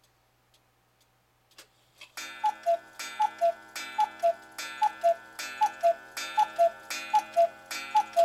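Eight-day cuckoo clock ticking about twice a second, then striking eight o'clock: eight two-note cuckoo calls, high then low, each with a ringing strike.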